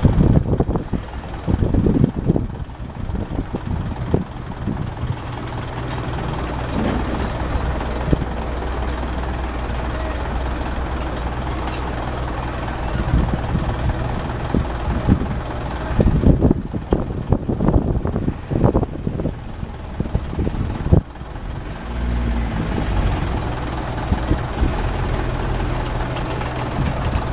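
Mitsubishi Fuso Canter dump truck's diesel engine running steadily while the raised tipper body is lowered. Irregular knocks and clatter come near the start and again about two-thirds of the way through.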